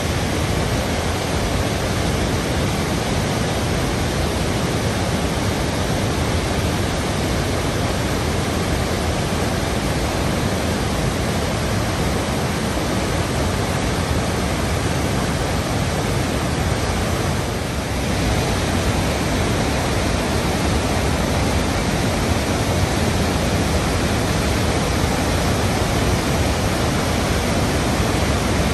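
Rhine Falls, a large river waterfall, rushing: a loud, steady wash of churning white water, with a brief dip about two-thirds of the way through.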